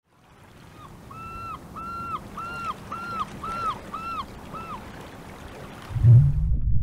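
A gull calling in a quick series of about eight short, matching calls over a steady wash of sea waves. A loud low rumble starts near the end.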